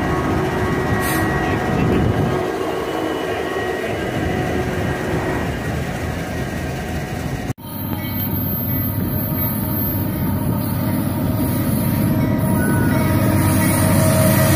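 Union Pacific diesel freight locomotives and a double-stack container train passing close by, engines running and wheels rolling on the rails. After a sudden cut halfway through, another Union Pacific diesel locomotive approaches, its sound growing steadily louder.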